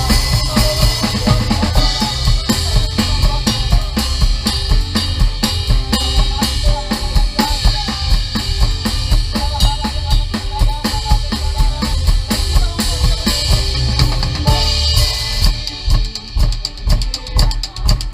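Drum kit played in an upbeat worship-song groove with a band: quick kick-drum and snare strikes with rimshots under sustained instruments. Near the end the playing thins out to spaced, accented hits.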